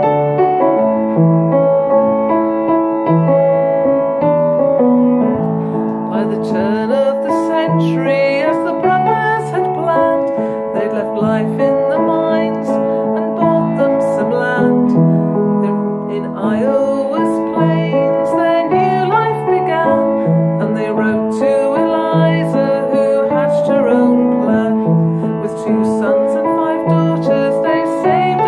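Piano music: a slow instrumental passage with a recurring low bass note, played between sung verses of a ballad.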